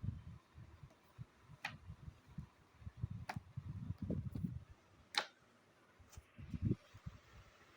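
Books and their packaging being handled: soft low bumps and rubbing, with three sharp clicks spread through.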